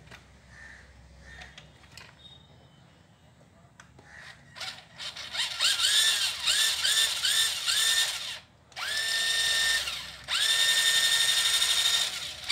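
A toy-grade 1/10 RC car's electric drive motor and gears whine as the throttle is tested with the rear wheel spinning in the air. There are several short spin-ups that rise in pitch, then two longer steady runs near the end, showing the newly connected ESC and motor wiring working. A few faint clicks of wire handling come before the motor starts.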